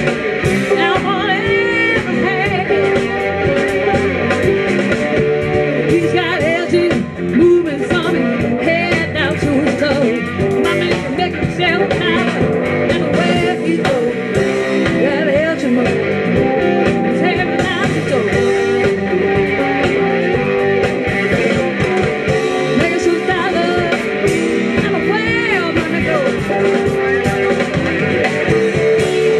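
Live electric blues band playing: two electric guitars, electric bass and a drum kit, with bent, wavering guitar notes over a steady beat.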